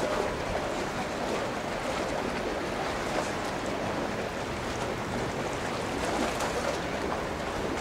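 Steady rushing noise of wind and water, with no single sound standing out.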